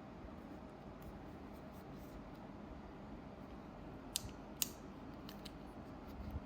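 Two sharp small clicks about four seconds in, with a few fainter ones after, over a low steady hiss.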